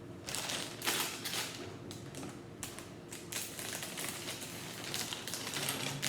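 Plastic Lego parts bags being handled and opened: irregular crinkling of the plastic with small bricks clicking against each other inside.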